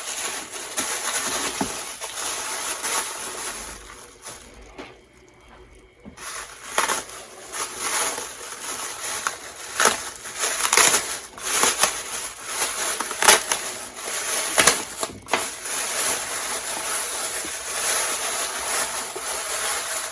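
Handling noise from a worn cardboard box and its contents being moved about: irregular rustling, crinkling and light knocks, over a steady high hiss.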